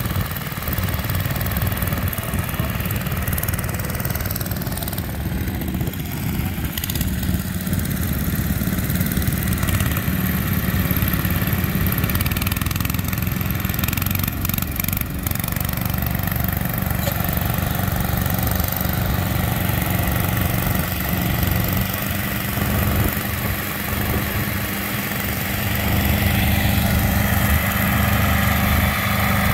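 Small Allis-Chalmers garden tractor engines running steadily under load while the tractors pull ground-working implements through loose soil. The engine sound grows louder near the end as a tractor comes close.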